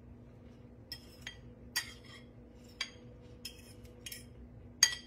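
Metal cutlery clinking against a plate, about seven light clinks with a brief ring, the loudest near the end.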